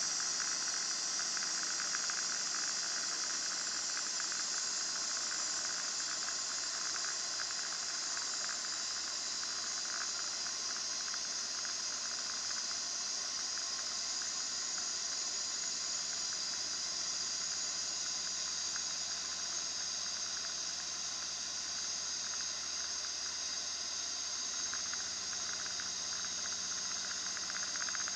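Steady cabin noise of a Van's RV-9A light aircraft in cruise flight: engine, propeller and airflow blended into an even, high hiss that holds unchanged throughout.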